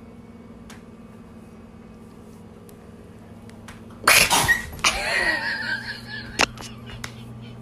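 A cat and puppy startling: about four seconds in, a sudden loud hiss-like burst, then wavering animal cries for about a second and a half, with a couple of sharp knocks. Before that there is only a steady low hum.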